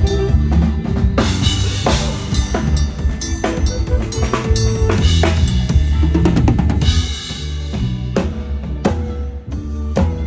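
Loud drum-kit music with a heavy, booming bass drum and sharp snare hits over a bass line, played for a sound check.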